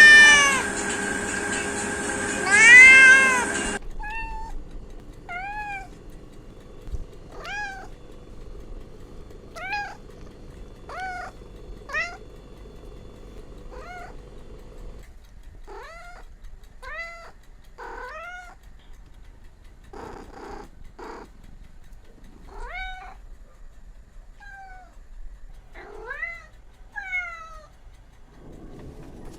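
Cats and kittens meowing: two loud, drawn-out meows at the start, then a long run of short, high-pitched mews, about one every second.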